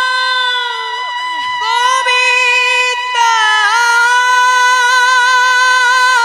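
A woman's voice singing long held notes in Bengali devotional kirtan style, high-pitched, with a short break about a second and a half in and a wavering vibrato in the second half.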